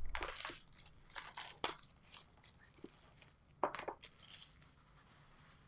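Plastic wrap crinkling and tearing as a sealed box of baseball cards is opened, in a few short rustling bursts with the loudest at the very start.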